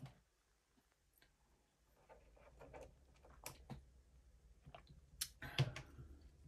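Near silence for about two seconds, then faint scattered clicks and rustling of small things being handled, with two sharper clicks about five and a half seconds in.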